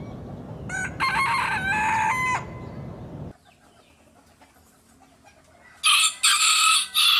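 Two roosters crowing one after the other: a full cock-a-doodle-doo about a second in, then a second, louder crow from a different rooster near the end.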